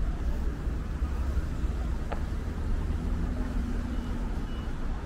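City street traffic: cars running along a busy road, heard as a steady low rumble with general noise. A low engine hum comes in for a second or so past the middle.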